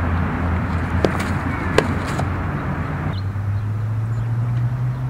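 Steady outdoor background noise with a low hum, broken by two sharp knocks about one and just under two seconds in. The background noise changes abruptly a little after three seconds in.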